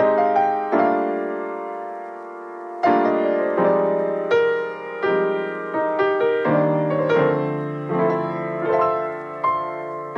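Background music played on piano: notes and chords struck and left to ring out.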